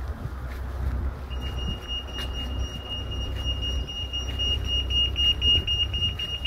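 A steady, high-pitched electronic tone that comes in about a second in and holds unbroken, heard over wind rumbling on the microphone.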